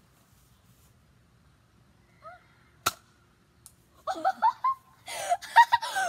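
A spring-powered Nerf dart blaster fires once with a sharp snap about three seconds in. From about four seconds in, children's voices shout and laugh.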